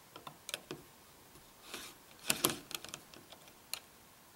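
Small metallic clicks and ticks of a hex key backing the cap screws out of a LaRue Tactical LT150 mount's scope ring. The clicks are scattered, with a brief scrape and then a louder cluster of clicks about halfway through.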